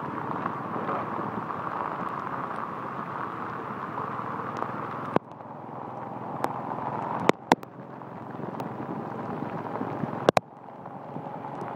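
Steady rush of rain and wind on a phone microphone while riding through a downpour. From about halfway there are a few sharp knocks on the phone, and after two of them the noise drops suddenly, then builds back up.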